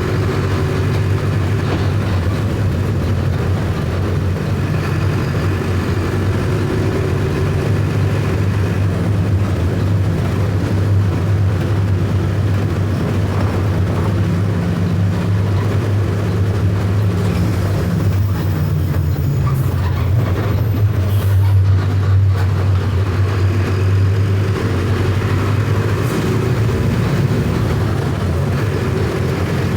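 Mercedes-Benz OF 1519 bus's four-cylinder electronically managed diesel engine running under way, a steady low drone whose pitch shifts slightly up and down as engine speed changes.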